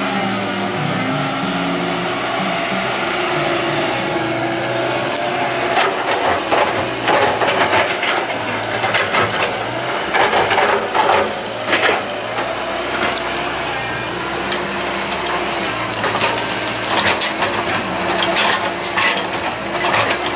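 CAT 312D hydraulic excavator's diesel engine running under working load, its note shifting in steps. From about six seconds in, repeated scraping and clattering of the bucket working soil.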